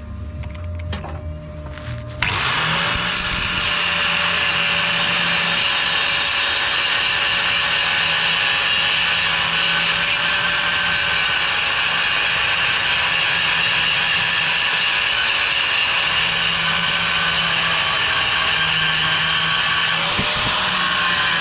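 Angle grinder grinding steel: a loud, steady, hissing grind over the motor's whine, starting abruptly about two seconds in and dipping briefly near the end.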